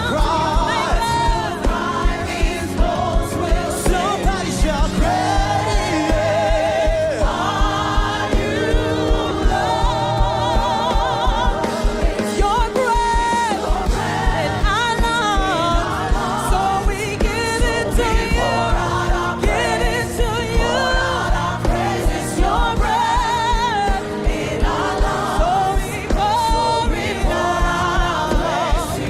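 Live gospel worship music: sung vocals with a wide vibrato and a choir over a band keeping a steady beat.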